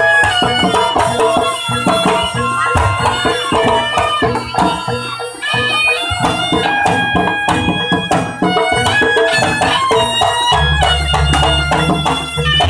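Live jaranan music: a nasal reed shawm (slompret) plays a wandering melody over kendang drums and struck percussion. A deep low sound comes in about ten and a half seconds in and holds.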